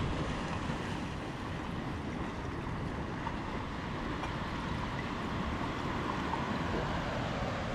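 Sea waves washing against a rocky shore, with wind buffeting the microphone: a steady rushing noise.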